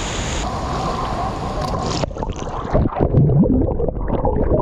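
Steady rush of the La Fortuna waterfall pouring into its pool. About two seconds in, it turns abruptly muffled to a low, irregular sloshing and gurgling of water.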